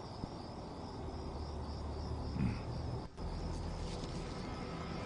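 Crickets chirping in a steady, pulsing high trill over a low background hum.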